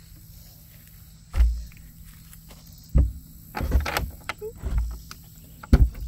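Several separate thumps, knocks and scrapes as a crawl-space access cover is handled and fitted back over its opening in the brick foundation; the loudest come about a second and a half in and near the end.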